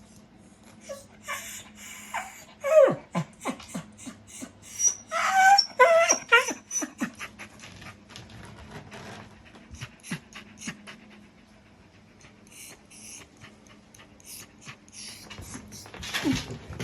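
Shiba Inu–beagle mix dog whining in short, high whimpers that glide in pitch, most of them bunched a few seconds in, with scattered clicks.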